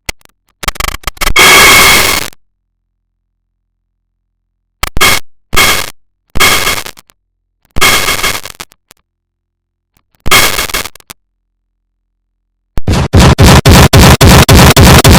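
Loud, harsh, distorted noise sound effect in separate blasts with dead silence between them. The first blast is longest, then several shorter ones follow. Near the end it breaks into a rapid stutter of about five blasts a second.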